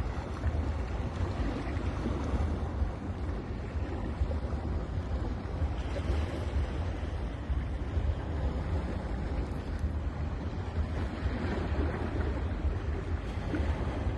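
Ocean surf washing onto a beach: a steady rushing hiss that swells about six seconds in and again near the end, over a low rumble of wind on the microphone.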